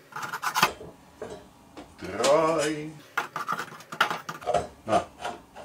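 Steel circular saw blades clinking and clattering as they are handled and set onto a wooden blade rack, a run of sharp metallic clicks.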